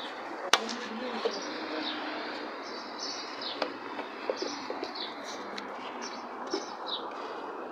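Small birds chirping: repeated short, high, downward-sliding chirps scattered over a steady background hiss, with a few sharp clicks.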